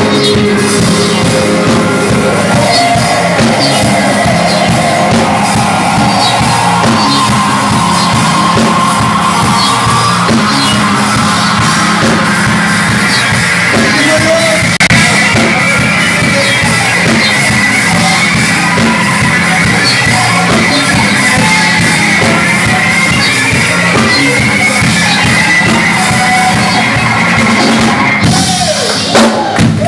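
Live rock band playing loud: electric guitars, bass and drum kit, with shouted vocals over the top. The music breaks briefly near the end.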